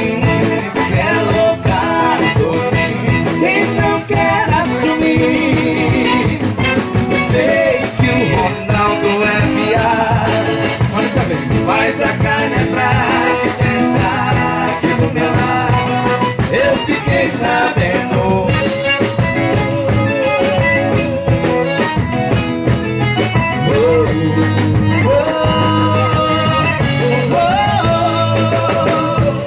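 Live sertanejo band playing: accordion, electric guitar and drums, with male voices singing into microphones.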